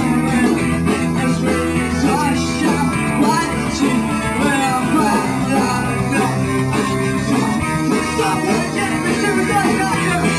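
Live rock band playing: electric guitars, bass and drums, with a singer's vocals over them.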